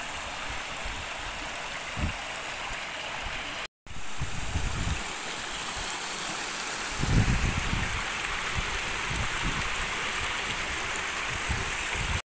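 Small mountain stream rushing and splashing over granite rocks, a steady rush of water. Bursts of low rumble on the microphone come in around the middle, and the sound cuts out briefly about four seconds in.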